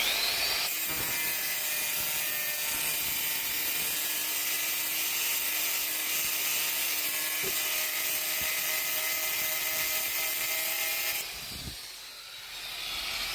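Angle grinder spinning up and cutting through a rusted leaf-spring U-bolt, a steady high whine with a hiss of grinding metal. It cuts off about eleven seconds in.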